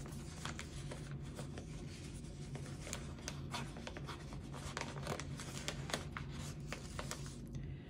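Paper and sticker sheets being handled: light rustling with many small scattered clicks and taps, over a steady low hum.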